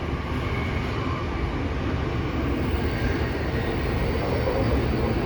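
Tokyo Metro 05 series subway train heard from inside the car while running: a steady rumble of wheels and running gear that grows slowly louder, with a faint high whine from about three seconds in.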